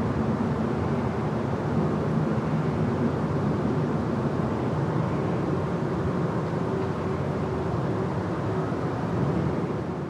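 City park ambience dominated by a steady low rumble of traffic.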